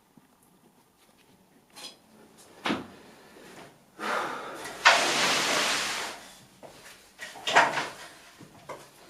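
Wooden picture rail being levered off a lath-and-plaster wall with a hammer: a knock about three seconds in, a long noisy scrape from about four to six seconds as it pulls away, then a couple more knocks near the end.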